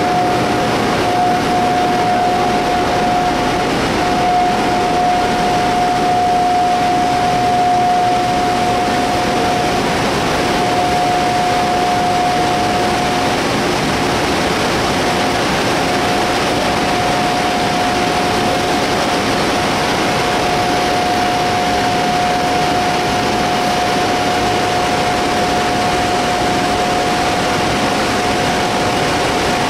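Tour bus running, heard from inside the cabin: a steady rushing noise with a constant high-pitched whine that drops out briefly a few times.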